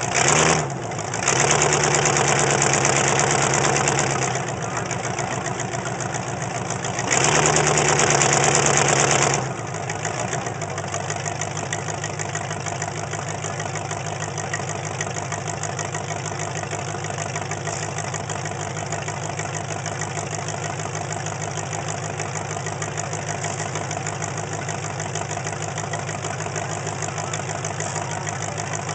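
Demolition derby truck's engine heard from on board: a short rev right at the start, then run up to higher revs for about three seconds and again for about two seconds around seven seconds in, before settling into a steady idle.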